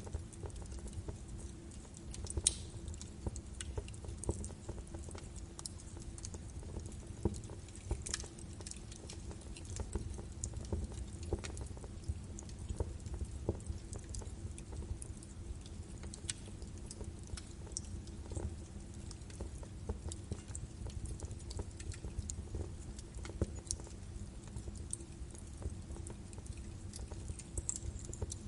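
Birch wood fire crackling and popping, with irregular sharp snaps over a low steady rumble of burning.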